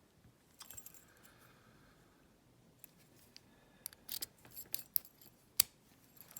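Key and Skillman lock cylinder being handled: a scattering of small metallic clicks and ticks, mostly in the second half, the sharpest one near the end.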